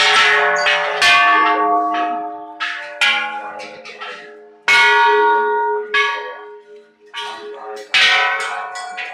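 Hanging bells, each with its own pitch, struck one after another about six times at intervals of one to two seconds; each strike rings with several tones and dies away before the next.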